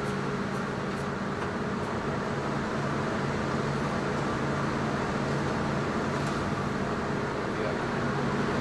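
Steady hum of kitchen ventilation, a constant low drone with a few faint light ticks from the work at the cutting boards.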